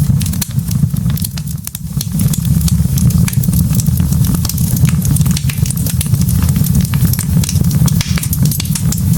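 Log fire in a fireplace burning, with dense, irregular crackling of the burning wood over a steady low rumble.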